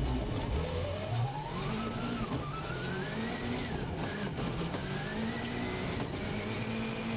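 Hill rally 4x4 heard from on board, accelerating hard across rough ground. A whining note climbs steadily in pitch, eases off about four seconds in, and then climbs again over a low steady engine drone.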